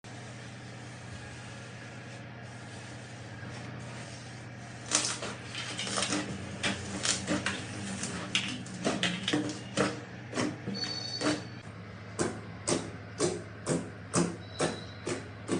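Crunchy slime being pressed and squeezed, giving sharp crackling pops that start about five seconds in and settle into a regular run of about two a second, over a steady low hum.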